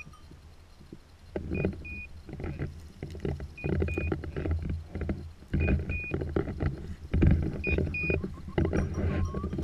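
Footsteps and legs brushing through dry heather and gorse in repeated rustling bursts. Over them a pointing dog's beeper collar sounds a short double beep about every two seconds, the signal given while the dog is on point.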